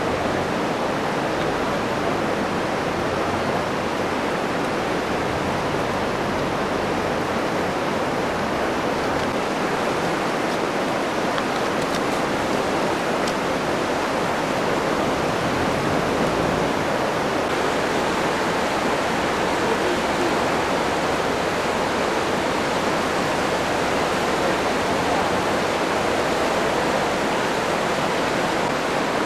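Fast-flowing floodwater of the Jizera river in flood, rushing and churning through a flooded street: a loud, steady rush of water.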